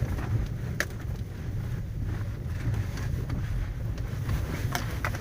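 Opel Mokka's road and drivetrain noise heard from inside the cabin while driving over a rough road: a steady low rumble with a couple of light clicks from the wheels meeting bumps. There is no stabilizer-link knock, since the links have just been replaced; the remaining bumps are the normal sound of the tyres hitting potholes.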